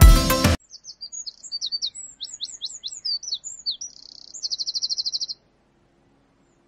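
Music cuts off abruptly half a second in, then a songbird sings: a quick run of high, mostly falling chirps, a short buzzy note, and a fast trill lasting about a second.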